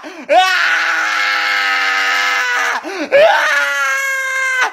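A man screams loudly in two long, drawn-out wails, the second sliding up into a held cry, mimicking a baby's crying.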